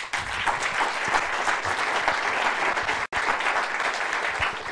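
An audience applauding, many hands clapping at once, with a momentary dropout about three seconds in.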